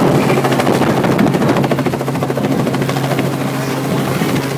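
Light two-bladed helicopter flying low overhead, its rotor beating rapidly and evenly over a steady engine drone.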